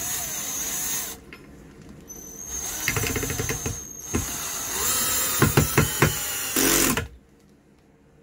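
Drill-driver running a screw through a small aluminium bracket into timber, in three runs with a high whine. The last run is the longest, with several sharp clicks in it, and it stops abruptly about seven seconds in.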